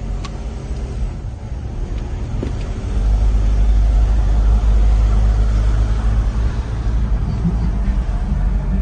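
Car cabin noise while driving: a steady low rumble of road and engine that gets clearly louder about three seconds in.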